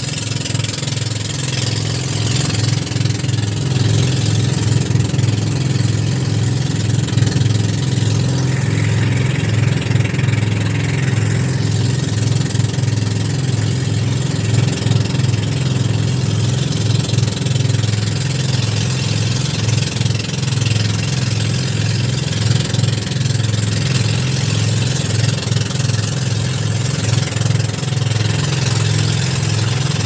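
Motorized outrigger boat's engine running steadily at cruising speed, a constant low chugging drone, with a hiss of wind and water over it.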